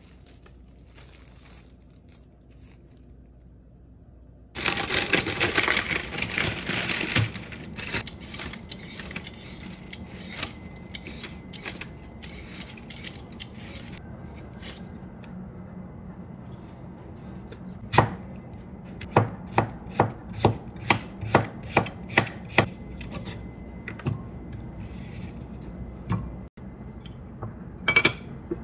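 Kitchen food-prep sounds. A plastic bag crinkles loudly for a few seconds, a hand vegetable peeler scrapes potatoes, and a run of sharp knocks comes about two a second.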